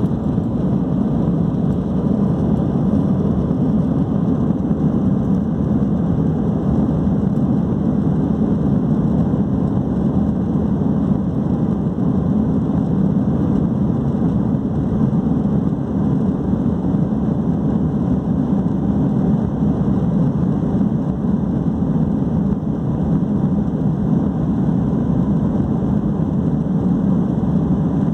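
Airbus A321's jet engines at low taxi thrust, heard inside the cabin over the wing: a steady low drone that holds at one level throughout.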